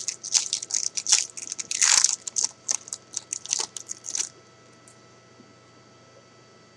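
Foil trading-card pack wrapper being torn open and crinkled: a quick run of irregular crackles that stops about four seconds in, leaving a faint steady hum.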